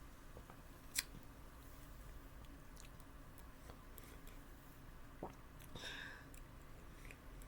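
Quiet room with one sharp click about a second in, a few fainter clicks after it, and a brief rustle near six seconds: small handling noises.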